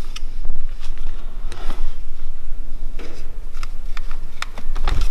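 Small plastic clicks and ticks of a removed BMW E39 ignition switch being handled and turned over in the hands, a dozen or so irregular clicks over a steady low rumble.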